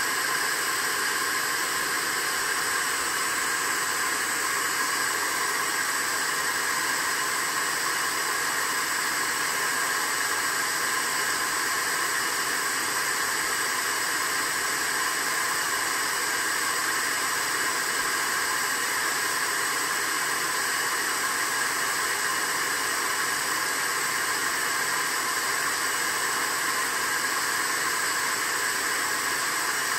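Shop vacuum running steadily, a constant even hiss with no change in pitch or level.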